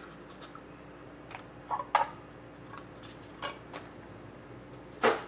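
Trading card packs and cards being handled: a scattering of light clicks and rustles, the loudest about two seconds in and again near the end.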